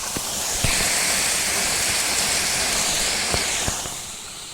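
Heavy rain hissing steadily. It swells louder and brighter about a second in and falls back near the end, with a few light knocks of the phone being handled.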